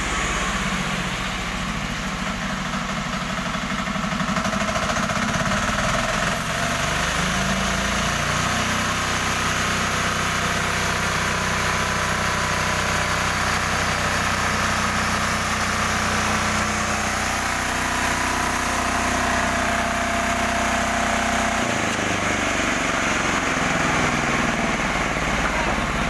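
Engine of a newly built band sawmill running steadily under load while the blade saws a log lengthwise. The engine note shifts in pitch a few times.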